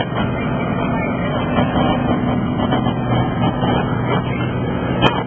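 Light aircraft's engine and propeller droning steadily, with a low hum under a thick rush of noise.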